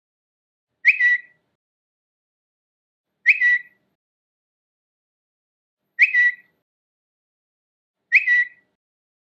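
Twitter app notification sound: a short, high chirp, each a quick upward flick settling into a brief held tone, heard four times about two to three seconds apart.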